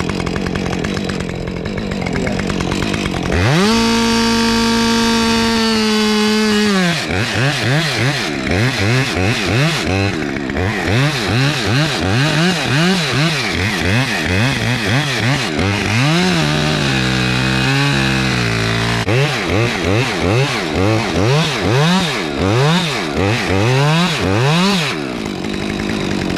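Two-stroke chainsaw idling. About three seconds in it is revved to full throttle and held for about three seconds as it cuts into a pine trunk. For most of the rest the revs rise and fall about twice a second, and it drops back to idle near the end.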